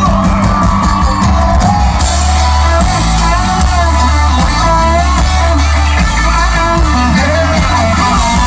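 Rock music with singing over electric guitar, bass and drums.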